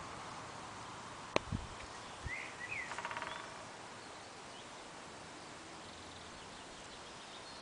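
Quiet rural outdoor ambience with a faint steady hiss. About a second and a half in there is a sharp click followed by a dull thump. Then, two to three seconds in, birds give a couple of short chirps and a brief buzzy trill.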